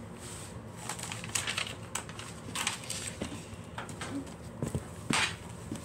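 Pages of a spiral-bound sketchbook being turned and handled: irregular paper rustles and light brushes of the hands on the pages, the loudest about five seconds in.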